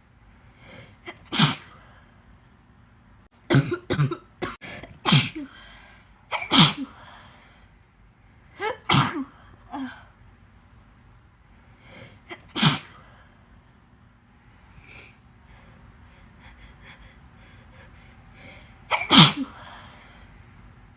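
A woman sneezing again and again while ill with pneumonia. The sneezes come in quick runs, then after a long pause a final sneeze near the end is the loudest.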